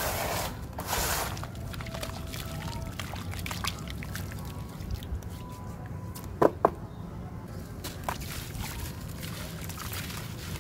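Hands swishing in a plastic tub of muddy water, then water dripping and trickling back into it in scattered drops. Two sharp ticks come close together about six and a half seconds in.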